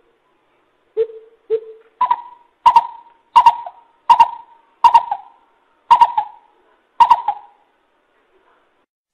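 Coucal (bubut) hooting: two deep hoots, then a run of about seven higher, hollow hoots at an even pace, each starting sharply and dying away, ending a little after seven seconds in.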